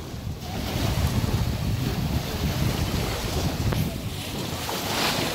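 Wind buffeting the microphone over the wash of lake waves, the hiss swelling near the end.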